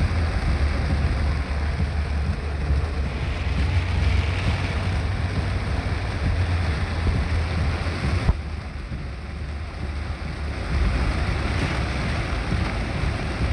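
Heavy rain falling: a steady hiss over a deep low rumble. About eight seconds in, a sharp knock is followed by a drop in level; the sound comes back up a couple of seconds later.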